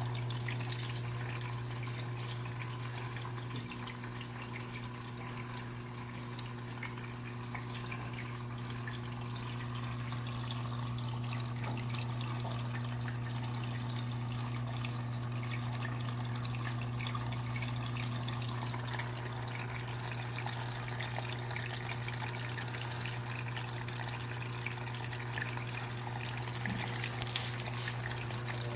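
KMC washing machine under test, with water running and splashing inside it over a steady low motor hum.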